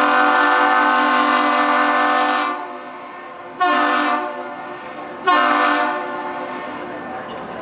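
Duluth Aerial Lift Bridge's horn sounding a salute in answer to a ship: a loud long blast that stops about two and a half seconds in, then two short blasts, the long-short-short pattern.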